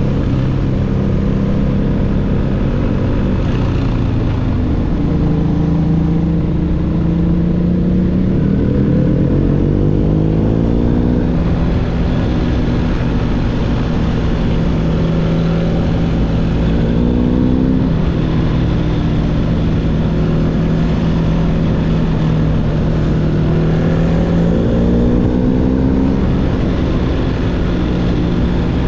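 BMW R1250GS boxer-twin engine running through an SC-Project SC1-R GT exhaust while riding. The engine note rises in pitch about four times under acceleration, with steadier cruising stretches between.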